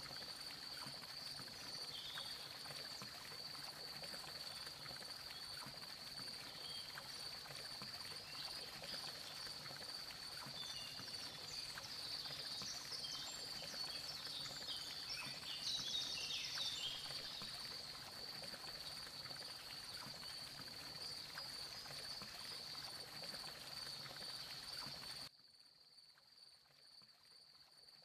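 Night-time chorus of crickets: a steady high trill, with scattered shorter calls mixed in through the middle. About 25 seconds in, the sound drops suddenly to a much fainter background.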